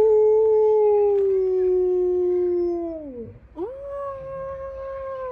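Siberian husky howling: one long howl that slowly sinks in pitch and drops away after about three seconds, then a second howl that swoops up and holds.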